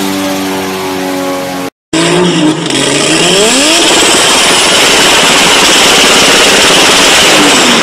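Turbocharged Toyota 2JZ inline-six engines being revved. First a steady, high-revving engine note that cuts off abruptly. Then a 2JZ-swapped Subaru Impreza's engine climbs steeply in pitch in a couple of quick rises and is held at high revs, very loud and rough.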